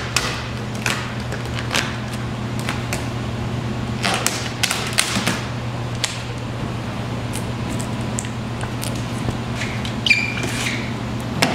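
Thick 5 mil vinyl wrap film crackling and rubbing in scattered short bursts as it is stretched and pressed down by hand onto a car hood, with a short squeak about ten seconds in. A steady low hum runs underneath.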